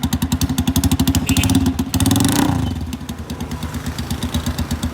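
Honda CG 125 single-cylinder four-stroke engine running through a split, half-missing silencer that leaves it effectively straight-piped, so each firing comes out as a loud separate pop. It idles, is revved up once about a second and a half in, and drops back to idle.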